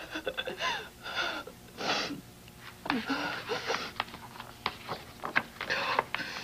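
A woman sobbing: short, catching breaths and broken cries that come in bursts separated by brief pauses.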